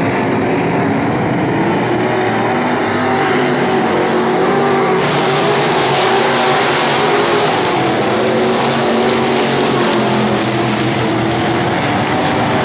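A pack of dirt-track race car engines running hard around the oval, a dense, loud and steady drone of many engine pitches. It gets a little louder and rougher about two seconds in and again about five seconds in as cars come past close by.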